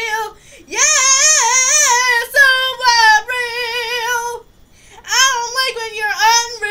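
A young woman's solo voice singing a high, wavering melody in long held phrases, with no backing beat audible. There are two short breaks, about half a second in and around four and a half seconds in.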